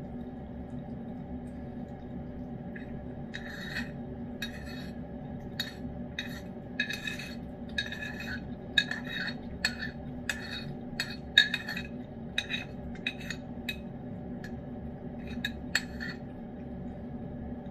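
Metal spoon scraping and clinking against a ceramic bowl as food is scooped out, in a run of short irregular strokes from about three seconds in until near the end, over a steady background hum.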